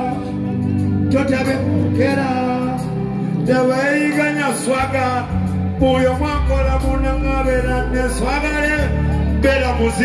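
Live music over a concert PA system: a male voice singing with sliding, drawn-out notes over a backing track with a deep bass line that steps from note to note.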